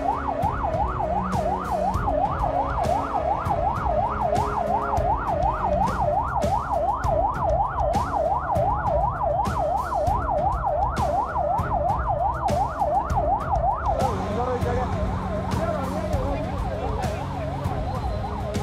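Emergency vehicle siren on a fast yelp, its pitch sweeping up and down about three to four times a second, over a low rumble. About fourteen seconds in the yelp gives way to a fainter, less regular wavering.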